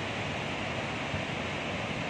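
Steady rush of floodwater pouring through the open spillway gates of Srisailam Dam and crashing into the river below.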